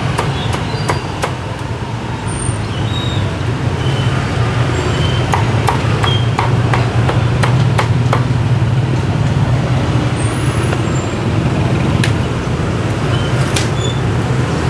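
Steady rumble of busy street traffic, with scattered sharp clicks and knocks over it.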